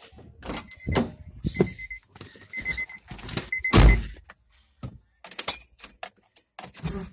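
A car's door being shut with one heavy thump about 4 s in, while the car's warning chime beeps several times. Keys jangle in the ignition, and near the end the engine starts and settles into a low, steady idle.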